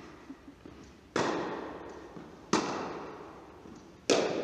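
Tennis balls struck by racquets in a groundstroke rally, three sharp hits about a second and a half apart, each ringing on in the echo of an indoor tennis hall.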